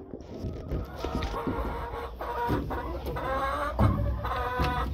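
Domestic hens clucking, with drawn-out pitched calls that start about two seconds in and keep repeating.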